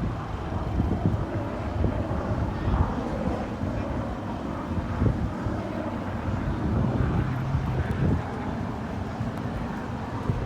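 Wind buffeting the microphone over a steady low rumble of outdoor ambience, with a faint murmur of distant voices.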